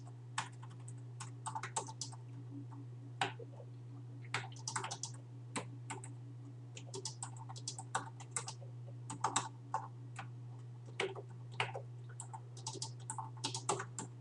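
Computer keyboard keys clicking in quick irregular runs as a line of BASIC code is typed, over a steady low hum.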